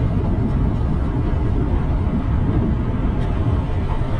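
Steady wind rumble on the microphone and road noise from a moving bike, with passing traffic.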